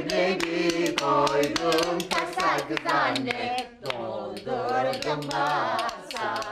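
Several people singing a song together, with hands clapping along in time.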